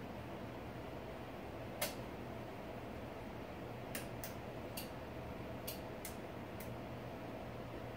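Sharp, irregular clicks over a steady low hum: one about two seconds in, then a quick run of about six fainter ones between four and seven seconds. They are typical of switches on the lightbar's control box being flipped as the Whelen Liberty's lights come on.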